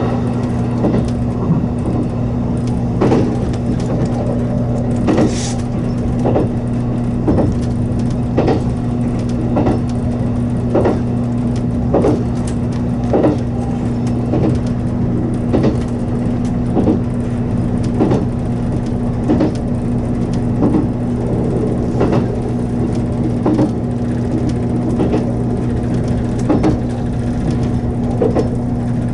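783 series electric train running at speed, heard from the cab: a steady running hum with two low tones, and the wheels clacking over rail joints in an even rhythm a little more than once a second.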